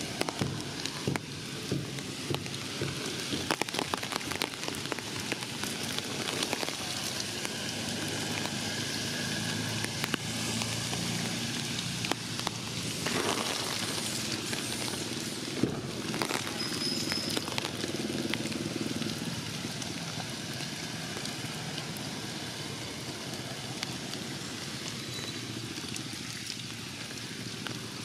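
Steady rain falling on tree leaves, an even hiss with many separate drops ticking through it.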